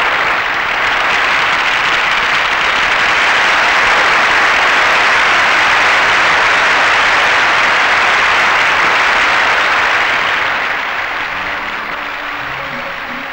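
Large audience applauding steadily, dying away after about ten seconds.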